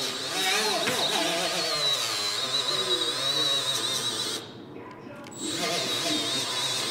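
Small cordless die grinder spinning a sanding disc against sheet metal, a steady high whine as it cleans up paint and filler around bolts; it stops for about a second partway through, then starts up again.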